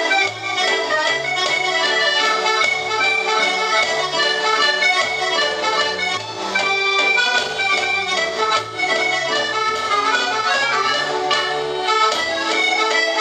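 Roland FR-7x digital V-Accordion playing a tune: a continuous right-hand melody over short, separately played bass notes.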